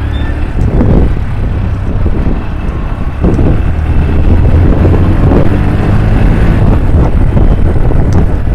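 Motorcycle engine running under way, its note swelling up a few times with the throttle, with wind buffeting the microphone.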